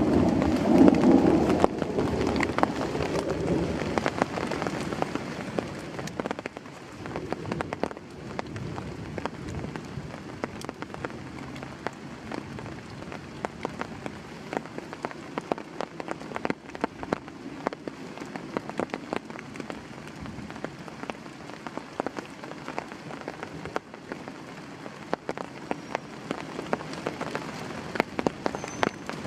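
Heavy rain falling steadily, with many sharp individual drop hits heard over the hiss. A louder low rumble fills the first few seconds and fades away.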